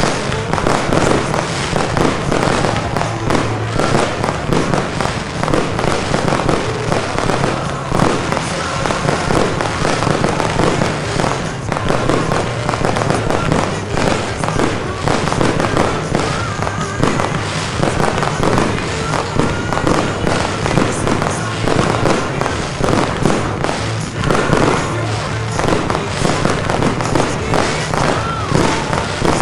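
Fireworks display: a dense, continuous run of bangs and crackling bursts, with music playing underneath.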